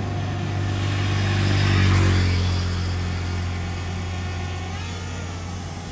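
A motor vehicle passing by, growing louder to a peak about two seconds in and then fading away, over a steady low engine hum.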